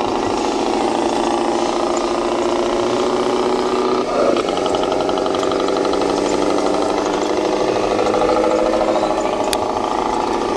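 Electronic sound module of a radio-controlled model truck playing a diesel engine sound through its small speaker, running steadily with small changes in revs and a brief surge about four seconds in.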